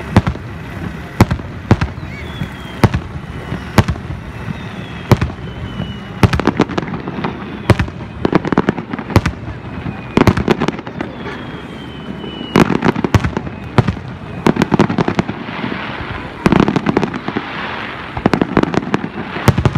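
Aerial firework shells bursting in rapid, irregular succession, sharp booms one after another. Near the end there is a stretch of dense crackling.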